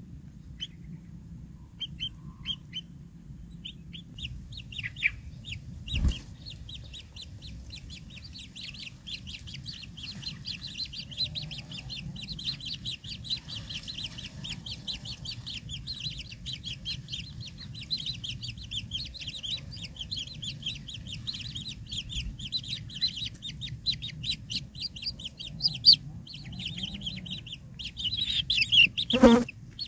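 White-throated kingfisher nestlings begging with rapid, high-pitched chittering calls. The calls start as scattered chirps and thicken into an almost unbroken chatter. There is a single knock about six seconds in and a loud rustling burst near the end.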